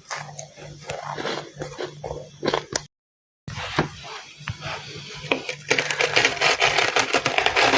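Close-up crunching and chewing of powdery freezer frost, in many sharp crackles. It breaks off for a moment about three seconds in, then becomes a dense, louder run of crunching near the end.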